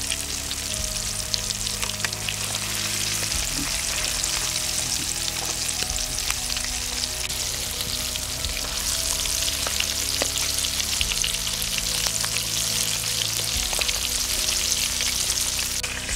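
Chicken drumsticks deep-frying in a pan of hot oil: a steady, dense sizzle with scattered small crackles and pops.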